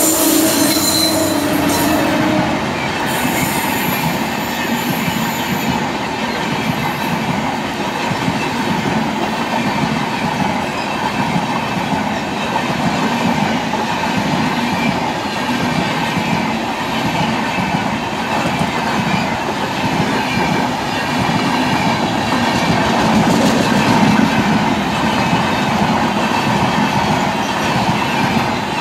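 Coaches of an Indian Railways superfast express passing at speed close by: a loud, steady rush and rattle of wheels on the track that falls away right at the end as the last coaches clear.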